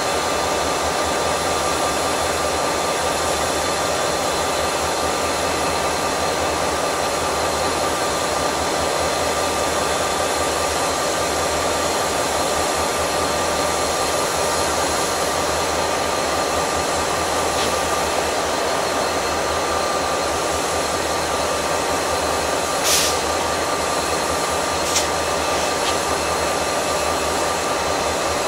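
Diesel-electric locomotives of a standing freight train idling: a steady drone with a constant high whine. Near the end come two brief sharp sounds about two seconds apart.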